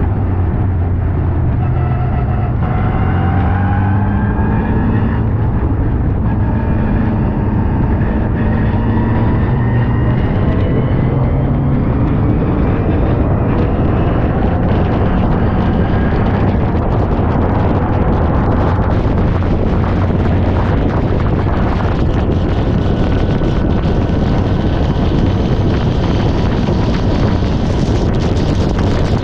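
MGA race car's four-cylinder engine heard onboard at racing speed, its pitch rising and falling with the revs through the first half. Later it holds steadier under a growing rush of wind noise.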